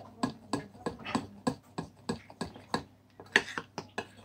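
A spoon knocking and scraping against the side of a bowl in a steady rhythm of about three clicks a second while stirring a thick flour-and-water batter.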